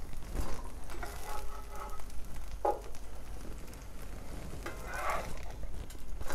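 Plant-based burger patties sizzling as they fry in a skillet, with a few light clicks of a utensil against the pan as they are turned.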